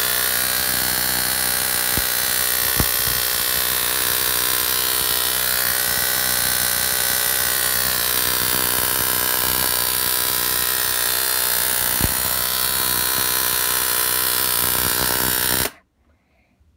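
High-voltage arc of an ignition-coil-driven Cockcroft-Walton voltage multiplier, buzzing loudly and steadily with a few sharp snaps. It cuts off suddenly near the end as the power is cut.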